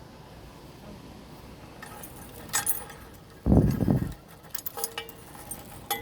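Metal clinking and jangling of a repair-station screwdriver rattling on its steel tether cable as it is handled. A dull low thump comes about halfway through.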